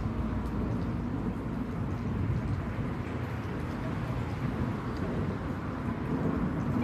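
Outdoor ambience: a steady low rumble with no siren tone standing out.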